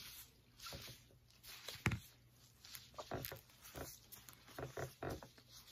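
Faint, irregular soft rustles and small clicks of gloved hands working through bleach-coated wig hair, with one sharper click about two seconds in.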